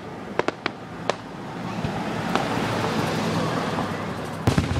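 Aerial fireworks: a few sharp pops in the first second, then a rushing noise that swells and fades over about two seconds, and a loud bang near the end.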